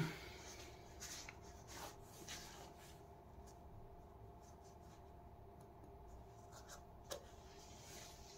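Faint rustling and rubbing of cotton-gloved hands handling a mesh sneaker, with a few soft scrapes about a second in, around two seconds and near the end. It opens on the fading tail of a louder knock, over a faint steady hum.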